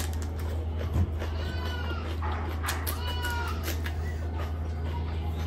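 Close-miked chewing of bhatura and mutton curry: wet mouth clicks and smacks. Over it come a few short high-pitched cries that rise and fall, from an unseen source, and a steady low hum runs underneath.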